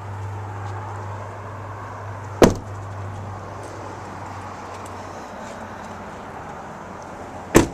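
Two car doors of a 2015 Chevrolet Suburban being shut, two solid slams about five seconds apart.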